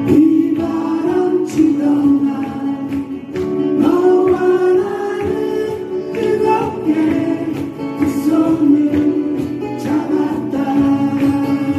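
Live song performance: acoustic guitar accompaniment under a sung melody that is held and bending.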